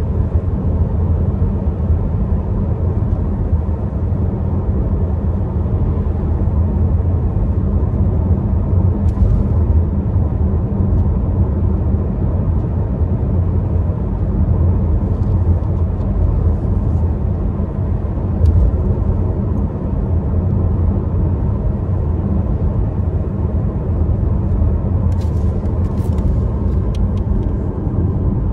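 Steady low rumble of a car's engine and road noise heard inside the cabin while driving, with a few faint clicks near the end.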